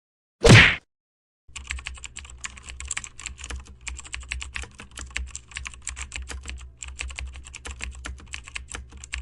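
Computer keyboard typing sound effect: a fast, irregular run of keystroke clicks, several a second, over a low steady hum. It is preceded by one short, loud hit about half a second in.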